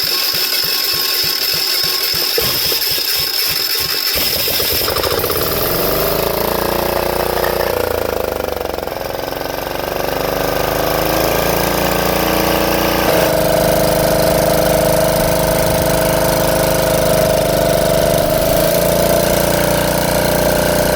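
Small generator engine running. For the first few seconds there is a slow rhythmic pulsing; then the engine picks up, its pitch wandering up and down before it settles into a steady run.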